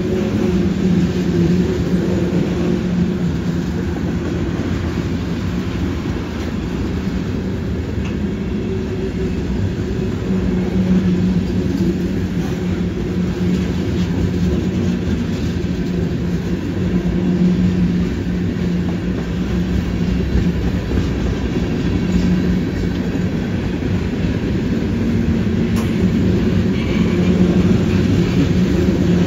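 Freight train of tank cars and covered hoppers rolling past, a steady rumble of steel wheels on the rails.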